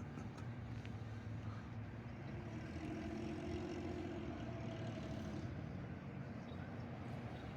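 A motor vehicle engine running steadily, a low hum with a higher tone that swells in the middle and fades again.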